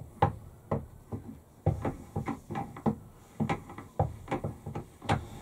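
The Acme-threaded saddle lead screw of a Warco WM16B milling machine is wound by its handwheel as it is fed in to meet its nut. It makes a run of light, irregular metal clicks and knocks, about three a second.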